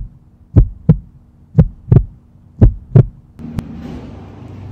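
Heartbeat sound effect: slow double thumps, about one beat a second, over a low steady hum. It stops a little after three seconds in and is followed by a single sharp click.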